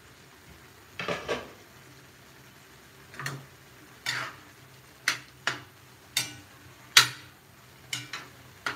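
Metal ladle clinking and scraping against a wide metal pan while stirring chicken in gravy. About a dozen sharp, irregularly spaced knocks, with the loudest about seven seconds in.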